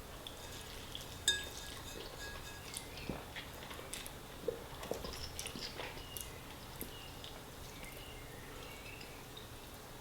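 Quiet eating of spaghetti: scattered soft mouth and cutlery clicks, with one light ringing clink of a fork on the plate about a second in.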